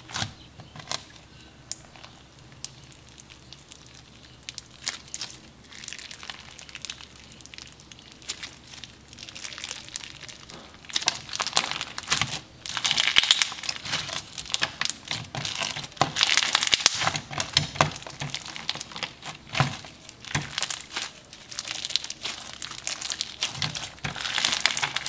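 Crunchy fishbowl slime, clear slime packed with plastic fishbowl beads, being pressed and squeezed by hand, giving a dense crackling crunch. It is softer and sparser at first and grows louder and denser from about halfway through.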